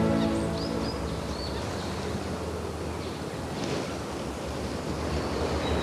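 Wind rushing over an outdoor microphone, an even hiss with low rumble, with a few faint bird chirps near the start and the end. The tail of a music track fades out in the first second.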